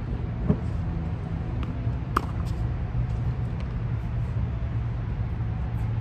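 Tennis balls being struck with racquets on a hard court: a few sharp pops, the loudest about two seconds in, over a steady low rumble.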